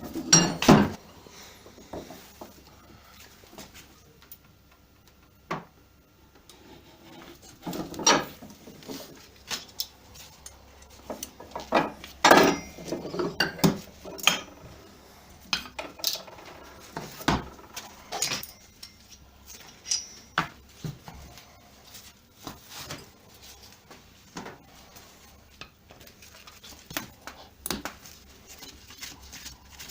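Metal tools and parts clinking and knocking irregularly on a workbench while a car alternator is being taken apart, with a few louder clanks among lighter taps.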